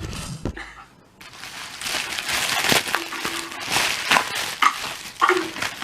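A mailing envelope and its packing being torn open and crumpled by hand: a dense crackling rustle of paper, plastic and tape that starts about a second in and keeps going.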